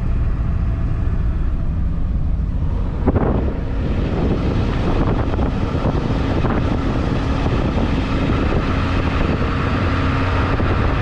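A vehicle running steadily: a low rumble with wind noise, and one brief knock about three seconds in.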